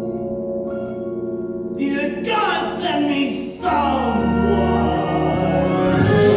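A live stage musical number: sustained accompaniment chords, then a man's solo voice singing a show tune from about two seconds in. A deep bass note joins partway through.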